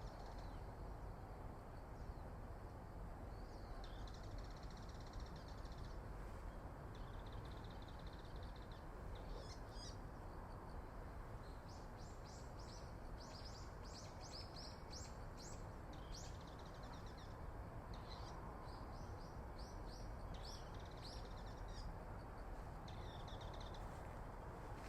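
Small birds calling: short high trills and quick runs of chirps, over a steady low background rumble.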